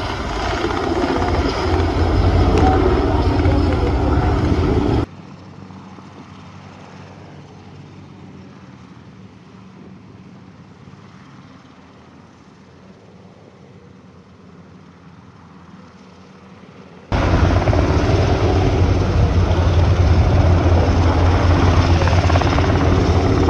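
Military helicopter rotors and engines running close by as it hovers. The sound drops abruptly to a much quieter level about five seconds in and comes back just as loud about seventeen seconds in.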